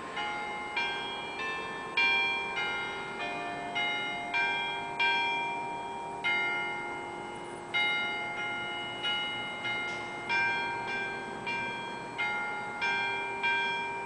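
Church bells pealing: several tower bells of different pitches struck one after another, just under two strikes a second, each ringing on and overlapping the next.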